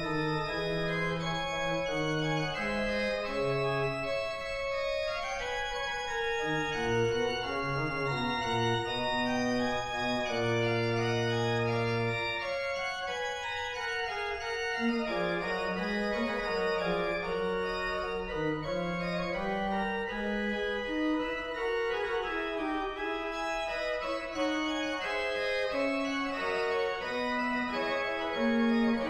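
Organ playing slow, sustained chords over a moving bass line, as a prelude before Mass. The deepest bass notes stop about twelve seconds in, leaving the middle and upper voices.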